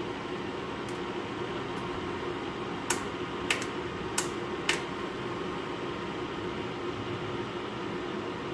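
Prestige induction cooktop running with a steady fan hum while heating a pressure cooker. About three seconds in come four sharp short ticks within two seconds, as buttons on its control panel are pressed.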